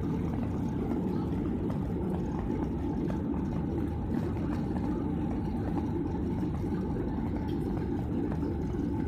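Steady drone of a Boeing 737's jet engines and rushing air, heard inside the passenger cabin as the airliner climbs after takeoff, with a faint steady tone over it.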